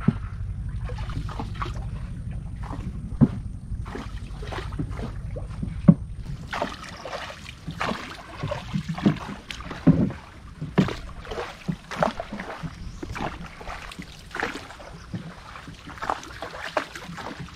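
Small boat moving along a canal, water sloshing and splashing against it. A steady low rumble for about the first six seconds, then many short irregular splashes and knocks.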